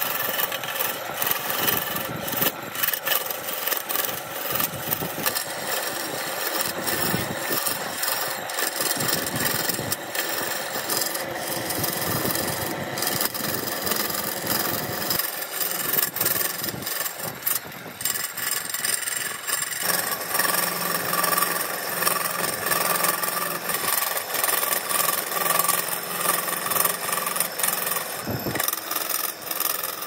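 Wood lathe spinning a burl wood and epoxy blank while a hand-held turning tool cuts into it: a steady, rough scraping of the cutting edge and flying shavings over the lathe motor's hum, which shifts in tone about two-thirds of the way through.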